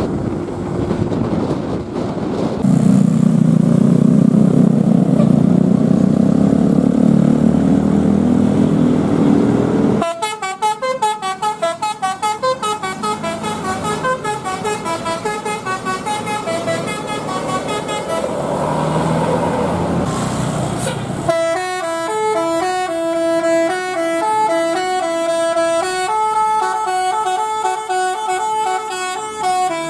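A bus's Basuri multi-tone 'telolet' horn playing tunes: a fast run of quickly changing notes from about a third of the way in, then a slower stepped melody from about two-thirds in. Before the tunes there is a loud, low, steady drone.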